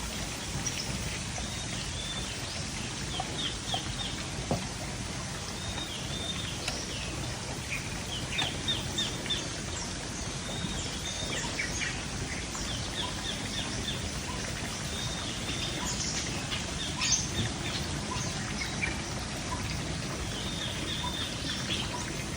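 Wild birds chirping, with short repeated chirps and trills coming again and again over a steady low background hiss.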